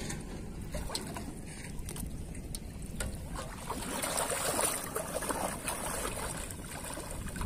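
Water sloshing and splashing as a person wades through knee-deep pond water, heavier from about four seconds in, over a steady low rumble.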